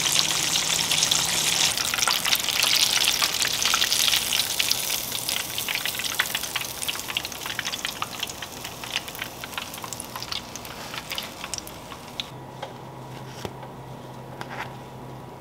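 Breaded fish fillets deep-frying in hot oil: a dense crackling sizzle that thins to scattered pops over about ten seconds. Near the end it is quieter, with a faint low hum and a few light clicks.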